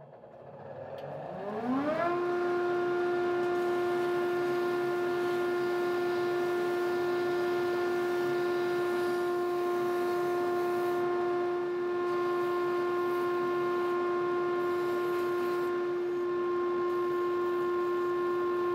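Belt grinder winding up to speed with a rising whine over about two seconds, then running with a steady, even whine.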